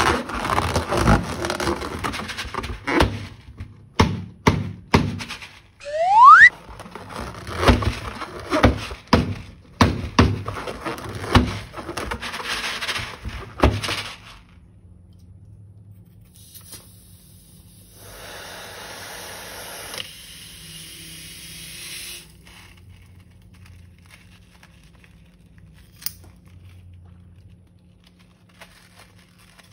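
Slime and balloons being handled: a dense run of crackles, knocks and squishy clicks, with a short rising squeak about six seconds in. From about halfway through it turns quieter, with a soft hiss for a few seconds and a single click later on.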